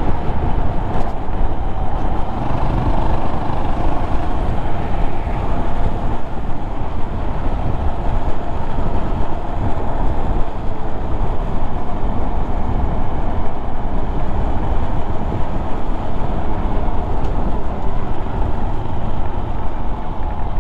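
Honda Monkey 125's small single-cylinder engine running steadily under way, mixed with steady wind rumble on the microphone from riding.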